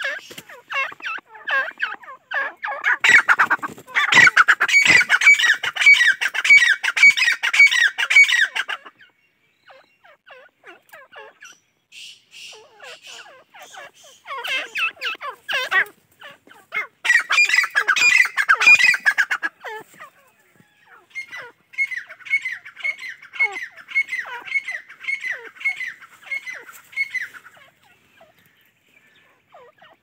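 Francolin (teetar) calling: three long runs of rapid, repeated shrill notes, each lasting several seconds, with quieter scattered call notes in the gaps between them.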